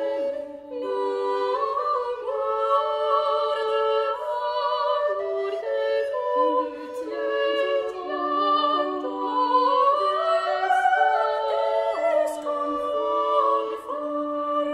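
Medieval or Renaissance music sung by several women's voices in parts, held notes moving in steps, with one part rising and then falling back around the middle.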